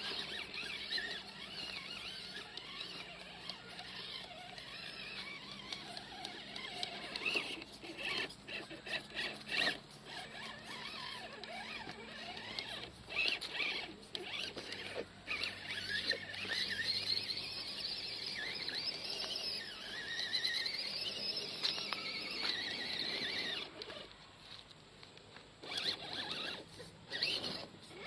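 Electric motor and gear drivetrain of an RGT Jimny RC rock crawler whining, the pitch wavering up and down with the throttle as it crawls over dirt and sticks, with scattered clicks and crunches.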